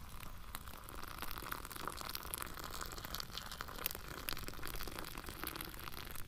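Just-boiled water pouring in a thin steady stream from a stainless steel Klean Kanteen into a disposable cup, a faint continuous trickle and splash as the cup fills.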